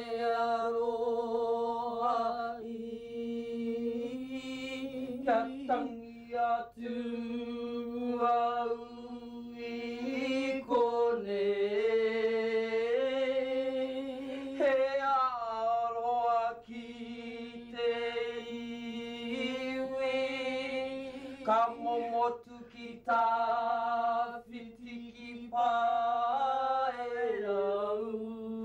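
A group of women singing a slow, unaccompanied song with long held notes, the pitch shifting step by step between phrases.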